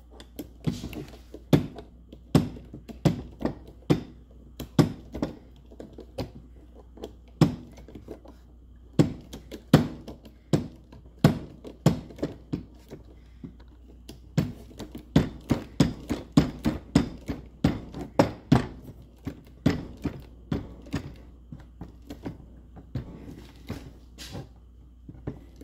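IBOSAD GC-1 manual hydraulic copper press tool being pumped by hand, its pump mechanism clicking and knocking with each stroke as the jaws close on a copper press coupling. It makes a long run of sharp clicks, about one or two a second, with a short pause about halfway through.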